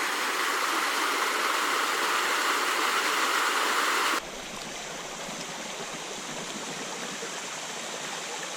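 Rushing water of a steep mountain creek and its small waterfalls, a steady hiss. About four seconds in it cuts suddenly to a quieter, softer rush.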